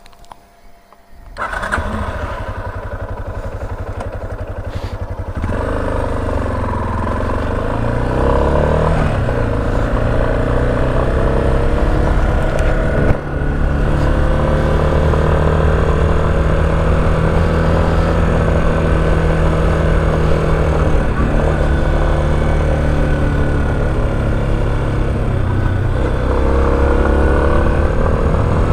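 Motorcycle engine starting about a second in and running, getting louder a few seconds later, then carrying on with its pitch rising and falling as the bike rides.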